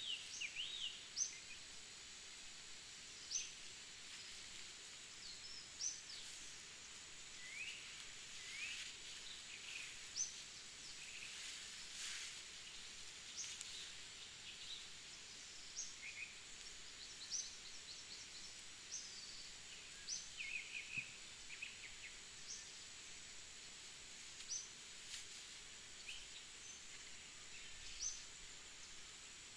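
Faint night-time chorus: a steady high-pitched hum with many short rising chirps scattered throughout, typical of night insects. Now and then a brief rustle of dry leaf litter as a person moves.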